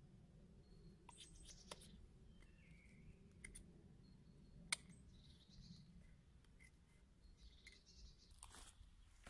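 Faint scraping and clicking of a knife blade whittling a wooden stick into a dowel, with one sharp click about halfway through.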